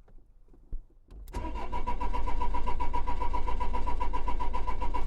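Renault Trafic 1.9 dCi four-cylinder diesel being cranked on the starter motor, starting about a second in with a steady, even cranking rhythm that stops near the end. The engine turns over but does not fire: a crank-no-start.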